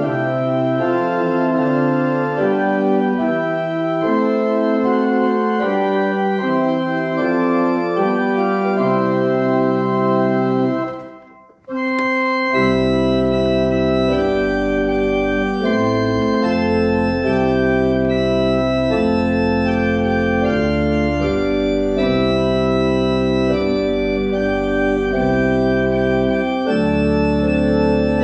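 Church organ playing a hymn tune in sustained chords. About eleven seconds in it stops for a brief breath between verses, then starts the next verse with deep bass pedal notes added under the chords.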